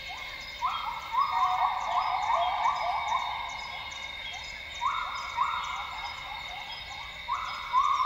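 Northern grey gibbons singing: a fast run of rising whoop notes from about half a second in to about three seconds, then two shorter bursts around five seconds and near the end. A steady high-pitched drone with rapid ticking runs underneath.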